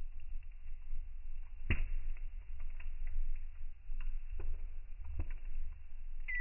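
Wood fire crackling in a small steel box stove: a sharp pop a little under two seconds in and a few smaller pops and ticks later, over a steady low rumble.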